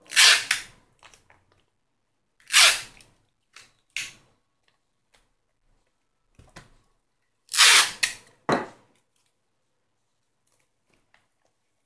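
Clear adhesive tape pulled off the roll and torn while it is stuck onto cardboard: about five short, loud rips, with the last two close together near the end.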